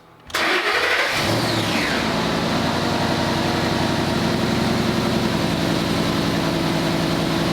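A 2011 Ford Mustang GT's 5.0-litre V8 being started: it cranks and catches about a third of a second in, with a whine that falls away over the next second, then settles into a steady idle.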